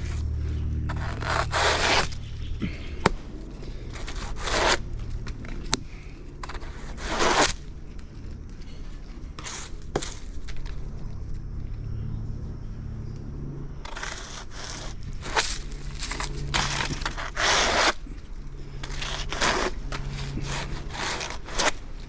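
Blade cutting into a wet banana pseudostem: a series of separate scraping, rasping strokes with a few sharp cracks between them.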